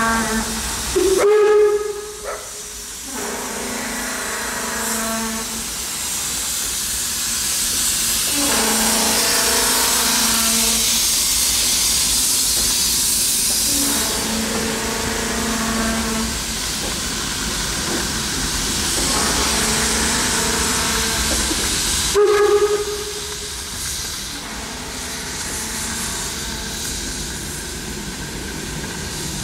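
Steam locomotive passing: its whistle sounds in two short blasts, about a second in and again about 22 seconds in, with a loud hiss of steam as the engine goes by in the middle. The carriages then roll past.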